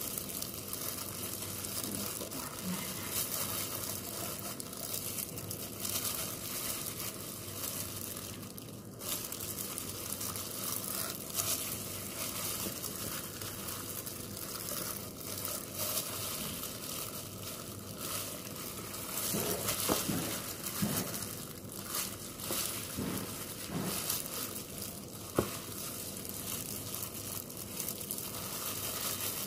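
Thin plastic disposable gloves crinkling and rustling as hands knead and poke holes in a raw whole chicken, with a single sharp tap near the end.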